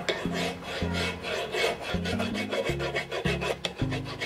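Flat hand file rasping back and forth across the rusty steel head of a ball-peen hammer held in a bench vise, filing off rust and scale in repeated strokes.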